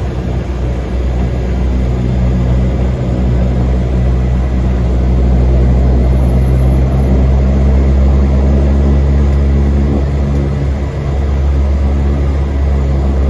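Cessna 208 Caravan's single turboprop engine and propeller running, heard from inside the cabin: a steady, loud low drone that swells slightly midway and eases back near the end.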